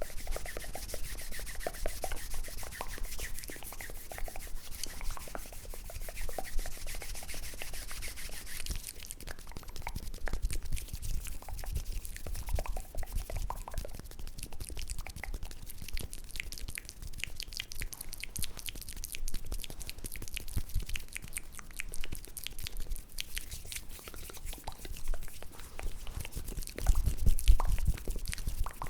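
Close-miked ASMR hand and mouth sounds: a soft high hiss for the first nine seconds or so, then a long run of quick small wet clicks and taps, a little louder near the end.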